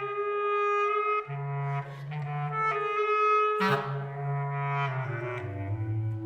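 Clarinet trio playing overlapping held notes that shift pitch every second or so, over a low sustained line, with a sharp accented attack a little past halfway.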